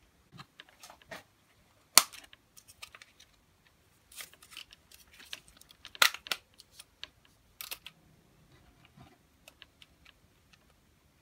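Handling noise from a homemade metal-and-plastic web-shooter gadget being picked up and fitted onto a hand: irregular clicks, knocks and rattles, with two sharp knocks, about two seconds in and about six seconds in.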